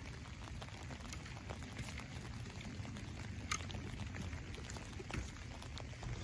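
A garden rake scraping and dragging through loose soil, with scattered light ticks and one sharp click about three and a half seconds in, under steady light rain.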